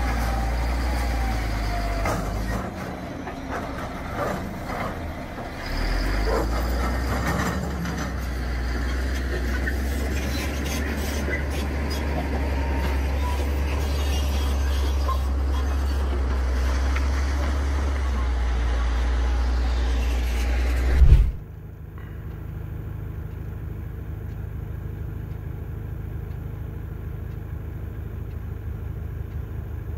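Crawler bulldozer's diesel engine running under load, with rock knocking and clattering as it pushes a boulder that tumbles down the slope. About 21 seconds in there is a loud thump, and then the sound cuts abruptly to the low, steady running of a heavy-haul truck's diesel engine.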